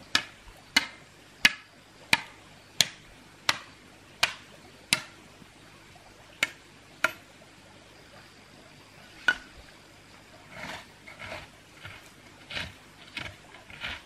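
Sharp knocks of a bamboo pole being pounded into stony ground: eight in a steady rhythm, about one every 0.7 s, then three more spaced out. In the last few seconds come softer, scraping strikes of a hoe digging the soil.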